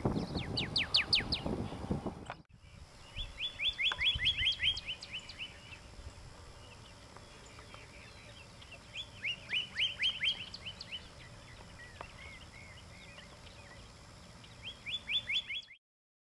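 Pyrrhuloxia singing: four phrases of fast, downslurred whistled notes in quick series, each a second or two long, with pauses between.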